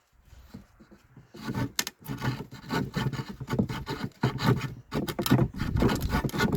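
Handsaw cutting through a wooden board in quick back-and-forth strokes, starting about a second and a half in; the cut is nearly through the board.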